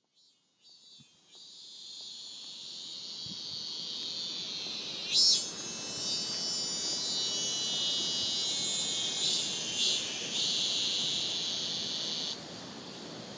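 A high, shrill insect chorus that fades in, grows suddenly louder about five seconds in and drops back near the end.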